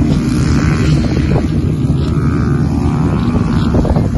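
Motocross dirt-bike engines revving, their pitch rising and falling as they work around the track, under a heavy rumble of wind on the microphone.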